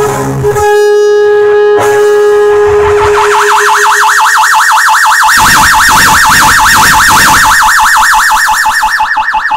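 Band music cuts off about half a second in, leaving an electric guitar rig making a held feedback tone. From about three seconds in, a fast warbling, siren-like tone from the guitar's effects comes in as the player works the pedals.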